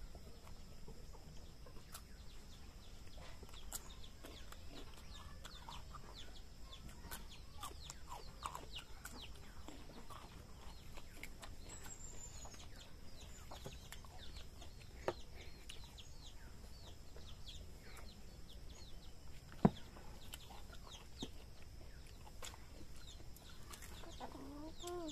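Chickens clucking with a brief high bird chirp, over scattered sharp clicks; two louder clicks stand out about 15 and 20 seconds in.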